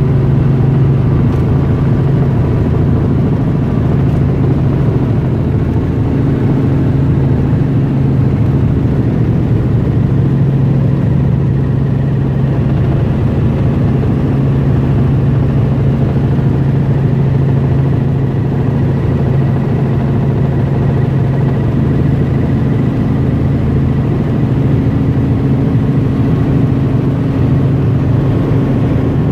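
Helicopter in flight: the engine and rotor make a loud, steady drone with a strong low hum and a few faint steady higher tones.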